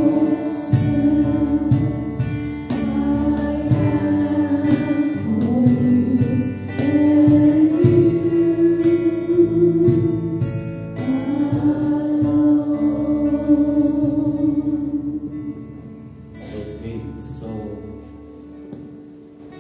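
Several voices singing a worship song together over instrumental accompaniment, with long held notes; the song dies down about fifteen seconds in.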